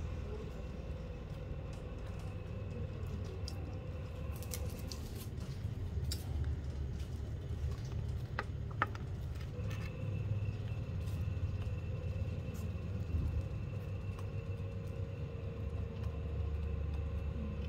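Rooster pecking at a concrete floor: a few faint sharp taps over a steady low rumble.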